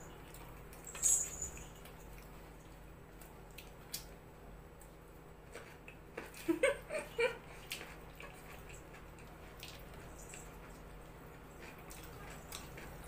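Quiet eating sounds from eating soft naan and curry by hand: chewing, lip noises and scattered small clicks and taps, with a short murmur of voice a little past halfway.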